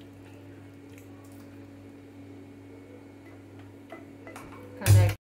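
Faint squishing of hands mixing marinated chicken pieces in a bowl over a steady low hum, then a few light clicks and one loud clunk near the end as the frying pan is handled on the stove; the sound then cuts off suddenly.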